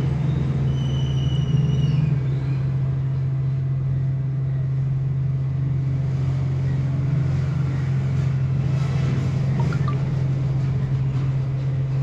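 A steady, loud low hum, with a few faint high toots in the first two seconds.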